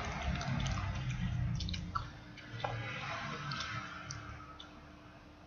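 Person chewing a mouthful of food close to the microphone, with many small irregular mouth clicks, growing fainter toward the end.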